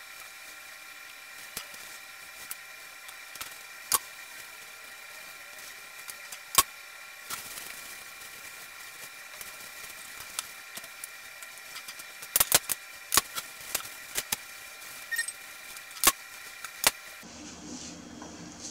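Scattered sharp clicks and taps from handling a rack of raw pork ribs on a wooden cutting board while peeling off the membrane, more frequent in the second half, over a faint steady high whine.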